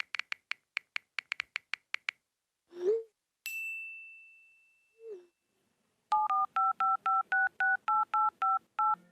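A string of mobile phone sounds. First a run of quick keypad clicks, about six a second, then a short swoosh, a single high notification ding that fades out, and another swoosh. From about six seconds in come about a dozen touch-tone (DTMF) dialing beeps, each a short two-note tone.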